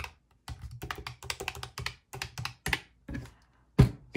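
Keys of a calculator with round typewriter-style keycaps clacking as a string of numbers is tapped in to add them up, in quick irregular clicks. A louder knock comes near the end.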